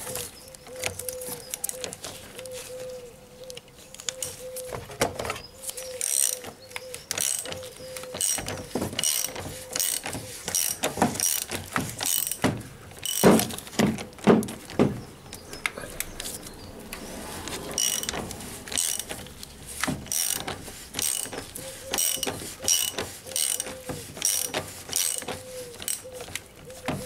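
Hand ratchet with a large 32 mm socket clicking in short spells as it screws the plastic oil filter housing cap back down. There are a few louder knocks about halfway through.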